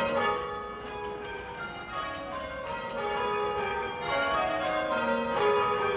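Church tower bells rung full circle by ropes, in rounds: a steady succession of strikes at different pitches, each note ringing on and overlapping the next.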